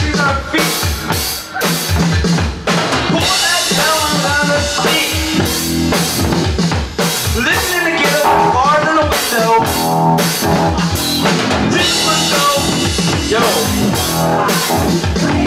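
A Tama drum kit played live in a steady beat of bass drum and snare hits, with a voice through a microphone wavering over it.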